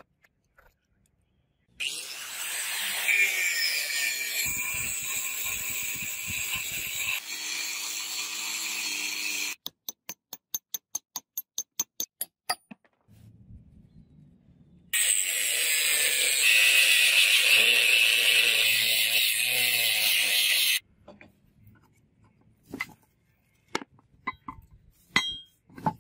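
A power tool cutting into a thick steel chain link, running steadily in two long stretches. Between them comes a quick run of about a dozen evenly spaced clicks, and a few scattered knocks follow near the end.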